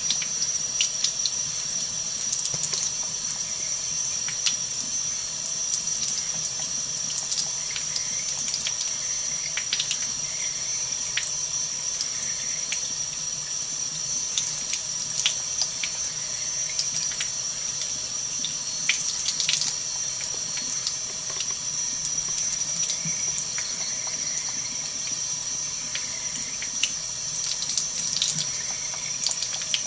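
Kitchen faucet running a thin stream of water into the sink, splashing over a cat's head as it drinks, with many small splashes and drips.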